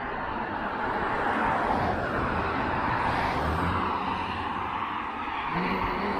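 Road traffic: cars going by, a steady rush of tyre and engine noise that swells in the first couple of seconds and eases a little near the end.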